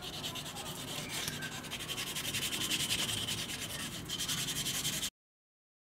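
Hand sanding of a steel axe head clamped in a vise: abrasive paper scrubbed in quick, even back-and-forth strokes over the metal around the eye, polishing off rust. The scrubbing stops abruptly about five seconds in.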